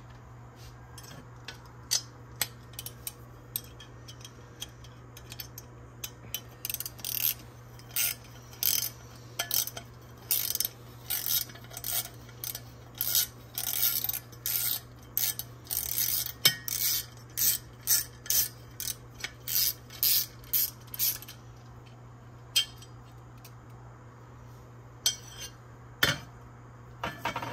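Hand tools working on metal printer parts: a run of short, high-pitched scraping strokes, about one or two a second, with scattered sharp clicks and taps before and after.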